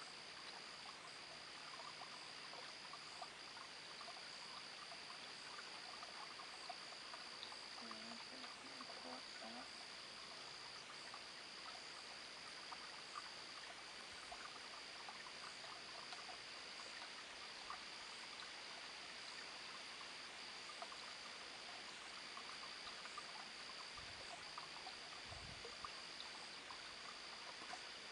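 Faint night chorus of frogs and insects: a steady high-pitched insect trill with scattered small chirps and croaks. Two brief low thumps come near the end.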